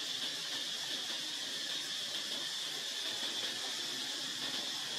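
Steady high-pitched drone of insects, unbroken and even in level.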